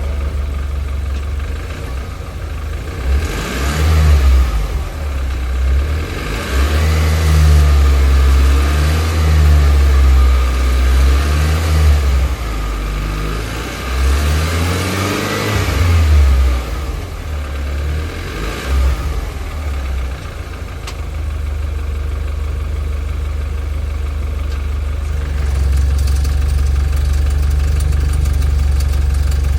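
Car engine in park, revved up and down about half a dozen times, then dropping back to a steady idle for the last third. The owner is chasing a ticking noise that comes up when the car is in park.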